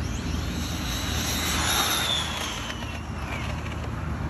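Arrma Infraction 6S RC car's brushless motor whining as the car races past at full speed. The high whine falls in pitch as it goes by, with a rush of noise loudest about two seconds in.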